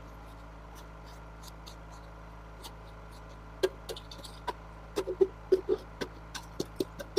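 Crunching footsteps in deep snow and snow being knocked off a skid-steer sweeper attachment by gloved hands: a scatter of short crunches and thumps starting about halfway through. A steady low hum runs underneath.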